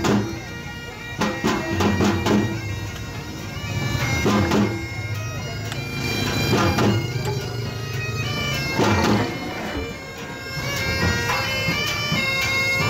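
Bagpipe playing a melody of held, stepping notes over its steady drone, with louder hits every couple of seconds.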